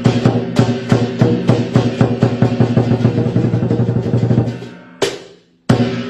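Lion dance percussion: a drum beaten at about three strokes a second over sustained ringing tones. It breaks off about five seconds in and starts again a moment later.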